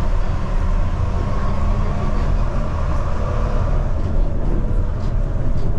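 Inside a Port Liner car, a rubber-tyred automated people mover running at steady speed on its elevated guideway: a steady low rumble with a faint, even whine over it.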